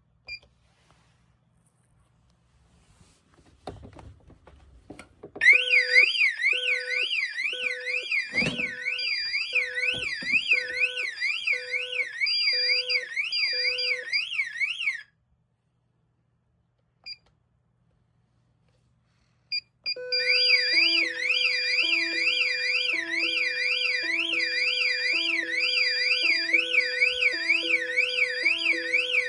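Ademco Microtech Galaxy 8+ intruder alarm system sounding. A fast electronic siren sweeps up and down about twice a second over a lower pulsing beep, stops for several seconds apart from a couple of short chirps, then starts again, the lower beep now alternating between two pitches. A single knock sounds during the first burst.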